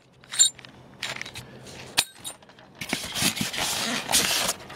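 Plastic bag crinkling around a metal spark plug tool that clinks as it is handled, with a sharp click about two seconds in. From about three seconds in comes a longer stretch of rustling and scraping as the hand works in the foam packing.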